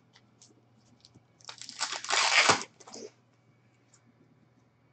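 Foil trading-card pack wrapper torn open and crinkled in the hands: one crackling burst about a second and a half in, lasting about a second and a half.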